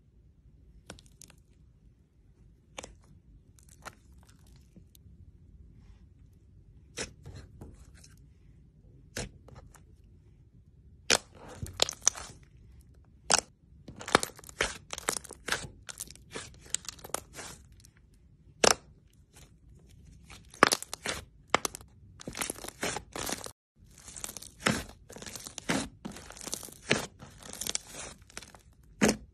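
Thick slime being poked, squeezed, folded and stretched by hand, giving crisp crackling pops as air pockets burst. The pops are sparse at first and turn into dense crackling from about eleven seconds in.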